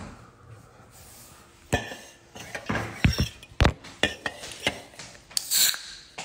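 Kitchenware clattering: an irregular run of sharp knocks and clinks, as of dishes, pans and utensils being handled and set down, with a brighter ringing clink near the end.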